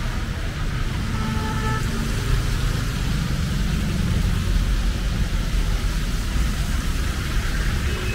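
Street traffic: motor vehicle engines and tyres making a steady, loud rumble.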